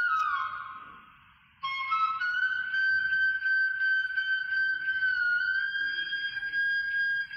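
Slow instrumental music with a single high, held melody line: one note fades away over the first second and a half, then a new long note starts abruptly and holds, shifting only slightly in pitch.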